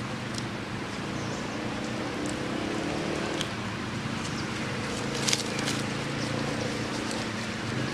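Steady outdoor background hum and hiss, with a brief crackle of dry leaves about five seconds in.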